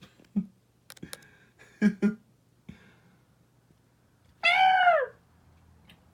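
A few short soft sounds and two clicks, then a single meow of about half a second that falls in pitch.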